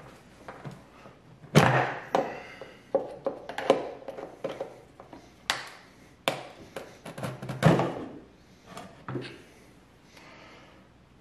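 Screwdriver prying and knocking in the drilled-out lock of an antique cash register's wooden back panel: an uneven series of sharp clicks, knocks and scrapes of metal on metal and wood, then the panel coming free near the end.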